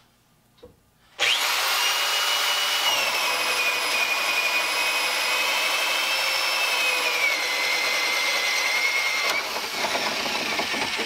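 Electric drill driving a freshly sharpened hole saw through a wooden board. The motor starts about a second in with a high whine that drops in pitch twice as the teeth bite under load. About nine seconds in the whine gives way to a rougher sound as the saw cuts right through.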